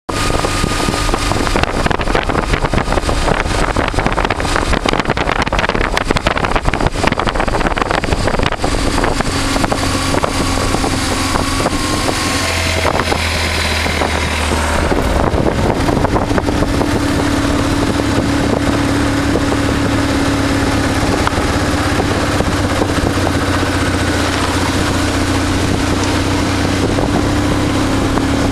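Kawasaki KLX250S single-cylinder four-stroke engine running under way, heard from on the bike, its pitch shifting a few times as the throttle and gears change. Wind buffets the microphone, heaviest in the first several seconds.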